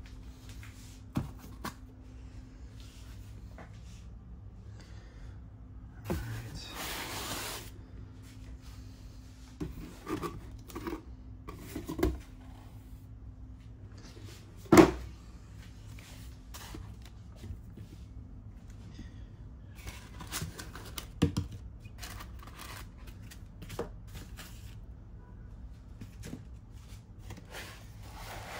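Cardboard box and foam packing being handled: scattered knocks, scrapes and a longer rustle about six seconds in, with one loud thump of the box or packing about fifteen seconds in.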